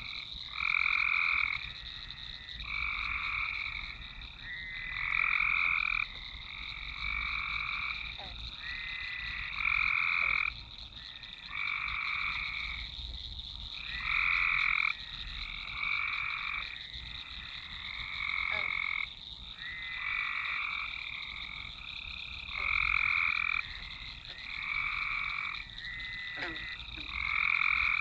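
A chorus of frogs calling over and over. The loudest calls last about a second each and come every second or two, overlapping one another, above a steady high-pitched trill.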